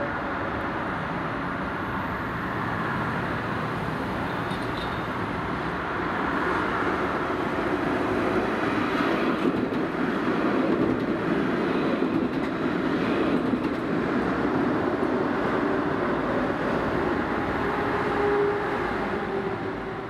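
Steady urban traffic noise, swelling about six seconds in and easing off near the end.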